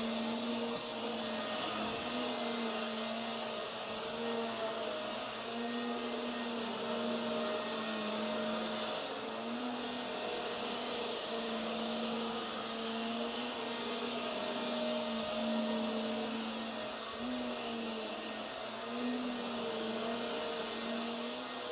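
Hoover WindTunnel Tangle Guard upright vacuum running while vacuuming carpet: a steady drone with a constant high whine over a lower hum that wavers slightly up and down in pitch.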